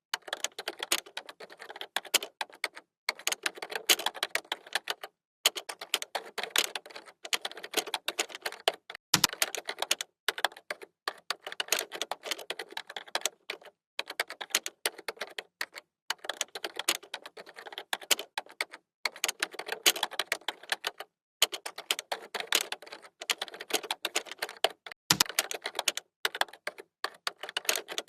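Typing on a computer keyboard: rapid runs of key clicks broken by short pauses, with a deeper thump twice.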